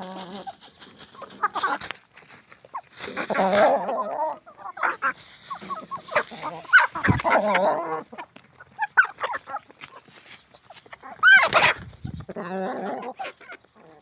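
Domestic chickens clucking close by in irregular bouts while they feed, with one louder, sharper call near the end.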